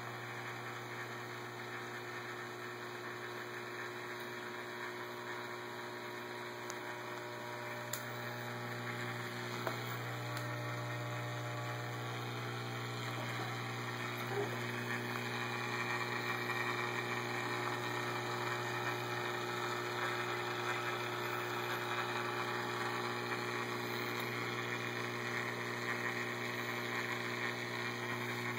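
Reef aquarium pumps humming steadily, with circulating water moving and trickling at the surface; the water sound grows louder about ten seconds in.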